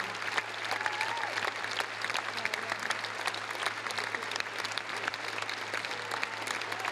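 Large theatre audience applauding steadily, a dense sustained clapping, a standing ovation at the end of a film screening, with faint voices and cheers mixed in.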